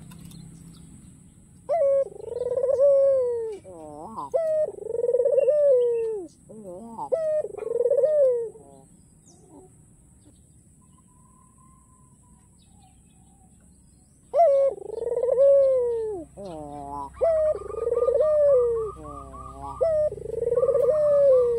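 White barbary dove cooing: a run of rolling coos, each swelling up and then falling away, then a pause of several seconds, then another run of coos near the end.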